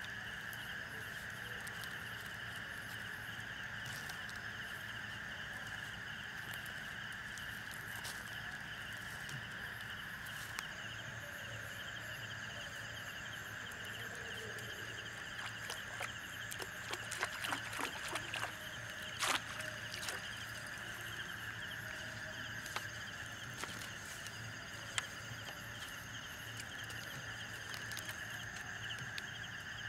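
Steady night chorus of insects and frogs, a constant high-pitched buzzing. Midway through comes a run of sharp clicks and knocks, the loudest a little past the middle.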